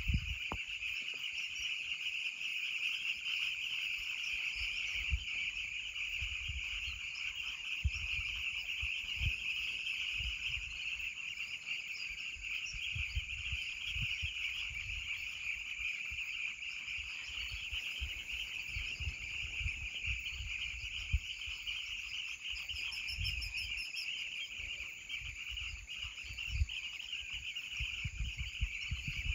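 Steady, dense insect chorus, a continuous shrill trilling of crickets, with a fainter flickering chatter above it and irregular low thumps.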